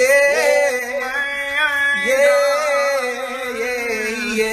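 A male voice singing long, wavering held notes.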